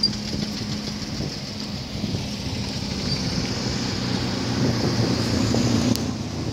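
A car driving: a steady low engine hum and road noise heard from inside the car, with some wind noise, growing a little louder toward the end.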